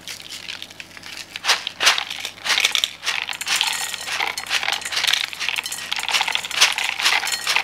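Instant coffee granules and whole peppercorns being sprinkled over pork and green onions in a rice cooker's inner pot: irregular crinkling of small packets and light clicks of the peppercorns dropping in.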